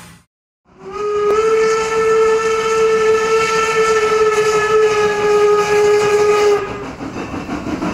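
Steam locomotive whistle of No. 475 blown in one long steady blast of several tones, starting about a second in and lasting about six seconds, then cutting off and trailing into a short hiss of steam.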